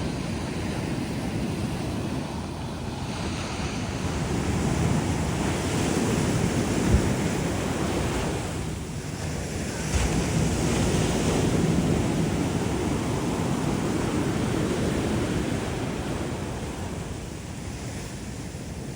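Ocean surf breaking and washing up a beach, swelling and ebbing every few seconds, with wind rumbling on the microphone. Two brief thumps about seven and ten seconds in.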